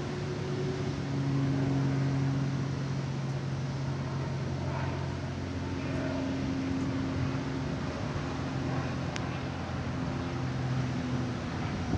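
A motor vehicle engine running, a steady low hum that swells a little about a second in and eases off later.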